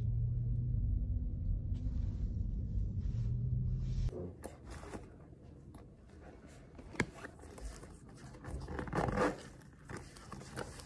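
A car's cabin rumble while driving for about four seconds. It then gives way to small metal clicks and the zip of a Chanel quilted leather vanity case being worked by hand, with one sharp click about seven seconds in and the loudest zipping stroke near nine seconds.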